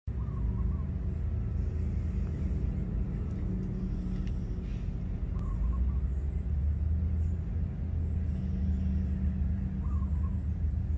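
Steady low background rumble with a low hum running under it, and a faint short chirp about every five seconds.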